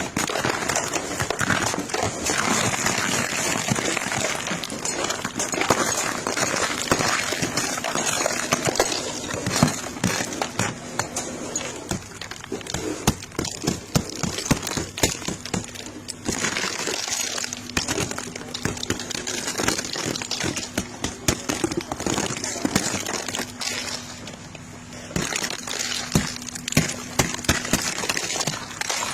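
Ice cracking and breaking as it is cleared off a car: many small sharp cracks and clicks over a scraping hiss, with a faint steady hum underneath.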